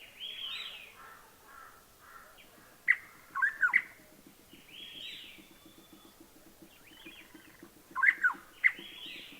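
Rusty-cheeked scimitar babblers calling: loud, sharp rising call phrases twice, about five seconds apart, each answered by fainter arching calls.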